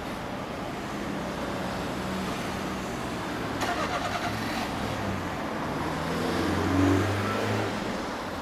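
Road traffic with engine noise; one motor vehicle grows louder, is loudest about seven seconds in, then fades as it passes.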